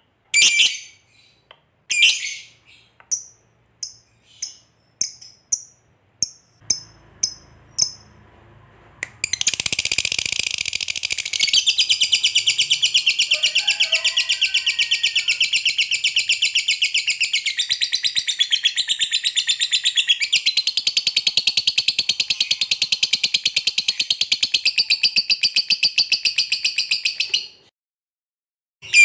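Lovebird giving separate sharp chirps that grow fainter, then about nine seconds in breaking into a long, rapid chattering trill, the 'ngekek panjang' prized by lovebird keepers, which runs for about eighteen seconds and stops abruptly.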